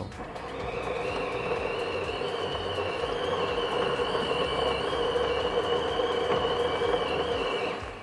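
Getra K90L bean-to-cup coffee machine's built-in grinder running steadily, grinding beans for a cappuccino, then stopping shortly before the end.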